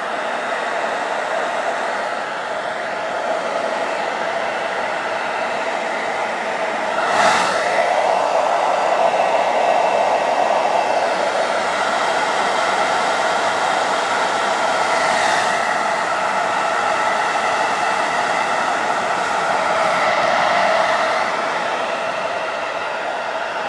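Hair dryer blowing steadily, with a few brief knocks about a third of the way in and again later.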